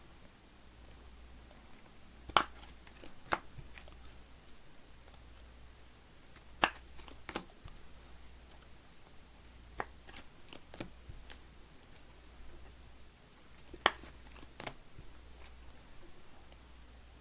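Trading cards being handled and set down on a table: scattered sharp taps and clicks, often in pairs about a second apart, over a faint steady low hum.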